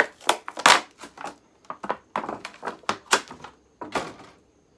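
Plastic and cardboard doll packaging crinkling and crackling as it is handled, a fast run of sharp rustles.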